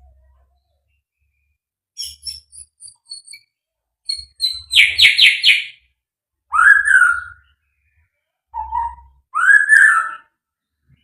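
White-rumped shama singing in separate phrases with pauses between them: a few thin high notes, then a loud, fast run of four harsh notes, then full whistled notes that swoop up and fall back.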